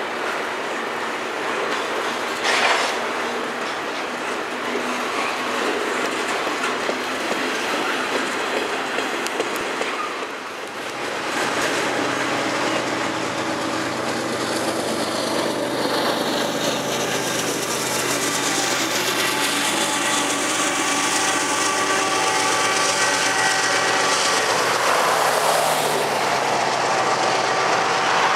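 Double-stack intermodal freight cars rolling past with steady wheel-on-rail rumble and clicking, and one sharp clank about two and a half seconds in. After a short dip near the middle, the drone of a GE ES44AC diesel locomotive, the train's rear-end remote, builds over the wheel noise and grows louder toward the end.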